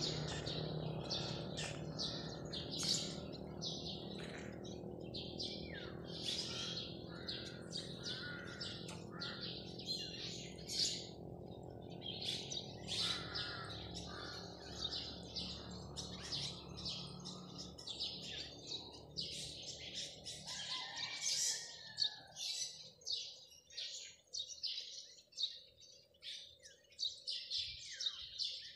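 Small birds chirping and twittering busily, many short high calls overlapping, over a low steady hum that fades away about twenty seconds in.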